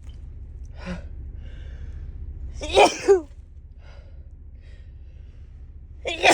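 A woman's allergy sneezes: one loud sneeze in two bursts about three seconds in, and the next one starting at the very end.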